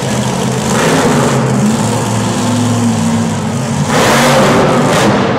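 Monster truck engine running and revving, with a louder surge about four seconds in.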